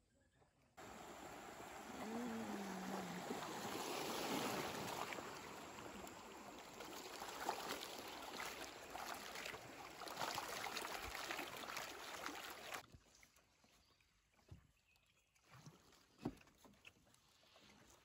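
River water rushing and splashing past a bamboo raft running through a riffle: a loud steady hiss that starts suddenly about a second in and cuts off abruptly near the end. After it, only a few faint knocks.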